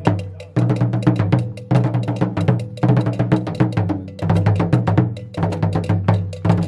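Tall Ga Odada barrel drums beaten with curved sticks in fast runs of sharp strokes over a deep ring, in phrases with short breaks about once a second. Ceremonial drumming that signals the end of the ban on drumming.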